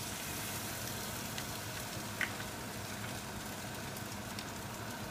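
Chicken and onions sizzling in a hot frying pan as sauce is squeezed in from a pouch, over the steady hum of a kitchen extractor fan, with one small click about two seconds in.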